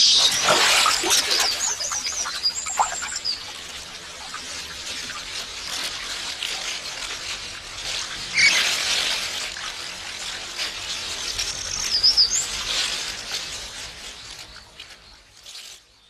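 Water splashing as young Japanese macaques play in a shallow river, loudest at the start and again about halfway through, with short high chirping calls over it twice.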